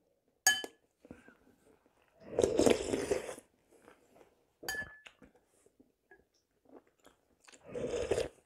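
Eating chicken soup close to the microphone: a metal spoon clinks twice against a porcelain bowl with a short ring, and in between come two longer noisy stretches of sipping and chewing, the second as a spoonful goes to the mouth near the end.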